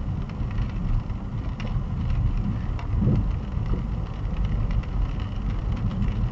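Car cabin noise while driving slowly in light rain: a steady low rumble of engine and tyres on the wet road, with faint scattered ticks.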